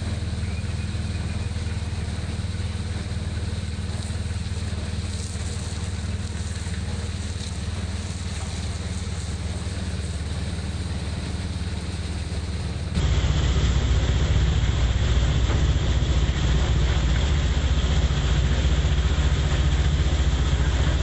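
Motorcycle engine of a tricycle running steadily while riding, with an even wash of road and rain noise. About two-thirds of the way through, the sound jumps abruptly louder and deeper.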